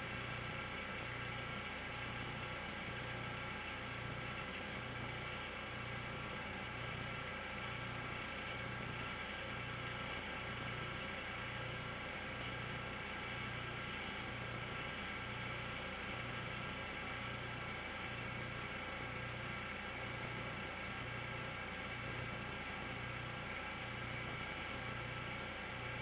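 Machinery running steadily: a constant hum with a low throb that repeats about every second and a quarter.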